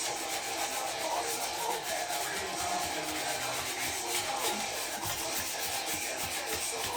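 Sandpaper rubbed by hand over a painted bicycle frame, a steady scratching that scuffs at the stickers without lifting them.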